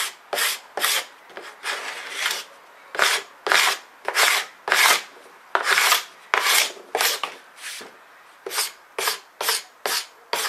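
A hand tool scraping along the edge of a wooden board in short, quick strokes, about two a second, lightly smoothing the wood to take off its rough fibres.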